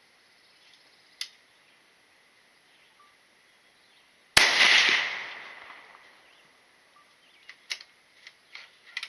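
A single gunshot about four seconds in, its report dying away over about a second and a half. A faint click comes before it, and a few light clicks follow near the end.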